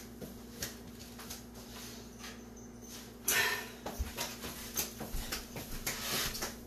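Faint scattered knocks and clatter of kitchen things being handled and moved about, loudest about three seconds in, over a steady low hum.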